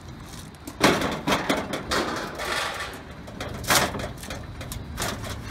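Potting soil poured from a plastic 5-gallon bucket into a galvanized metal trash can: a sharp knock about a second in, then the hiss and rattle of soil sliding out, with further knocks as the bucket is tipped.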